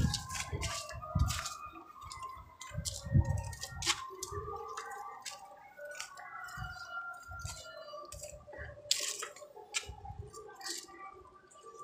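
Footsteps over broken-brick rubble, with scattered clicks and clinks of brick fragments and low thumps of the handheld phone being jostled, loudest in the first few seconds.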